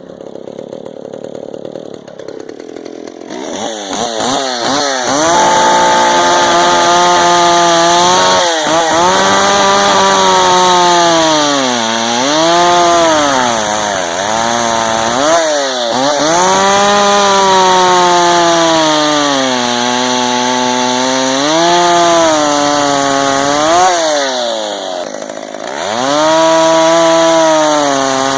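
McCulloch Pro Mac 610 two-stroke chainsaw at full throttle. Its engine pitch sags and recovers again and again as it bogs down under load, typical of a saw cutting through wood. It drops back briefly near the end, then revs high again.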